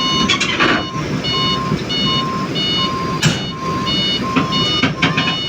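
Travel alarm of a 20-ton class hydraulic excavator beeping steadily, about one and a half beeps a second, over the running diesel engine as the machine tracks. A few sharp noises cut through: one about half a second in, one a little past the middle and one near the end.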